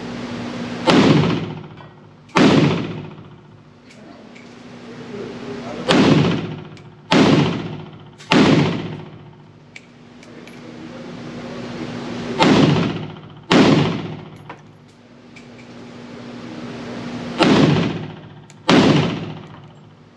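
Pioneer Arms Hellpup AK-pattern pistol firing 7.62x39 rounds: nine loud shots in twos and threes with pauses between, each followed by a trailing echo.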